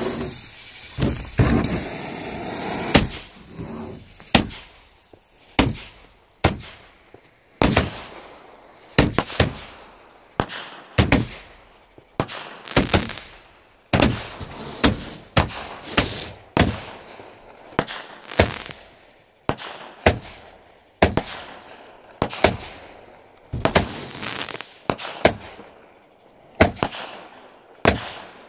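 Aerial fireworks bursting in quick succession: a steady run of sharp bangs, about one or two a second, some coming close together, each trailing off briefly.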